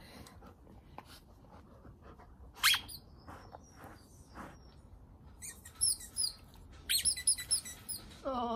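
Squeaky ball inside a fabric car-wash mitten squeaking as an Alaskan malamute puppy bites and tugs at it. One loud squeak comes about three seconds in, then a run of quick squeaks from about six seconds.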